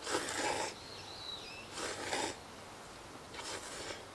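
Someone eating hot miso ramen, with three short breathy slurps of the noodles about a second and a half apart. A small bird chirps briefly about a second in.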